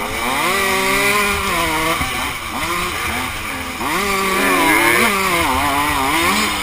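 Dirt bike engine revving up and easing off again and again as the bike rides a wooded trail, its pitch rising and falling several times.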